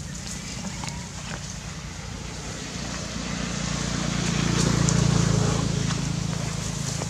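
A passing motor vehicle's engine: a low hum that swells to its loudest about five seconds in, then fades.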